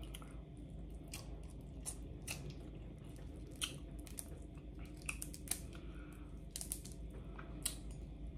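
Boiled crawfish being peeled apart by hand and eaten: scattered small crackles and wet clicks of shell breaking, with chewing.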